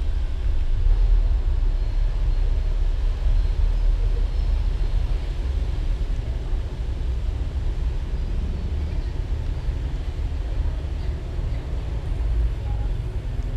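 Steady low rumble with an even background hiss, no distinct events.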